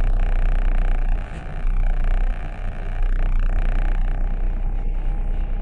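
A vehicle engine idling, heard from inside the cab: a steady low rumble that dips briefly twice.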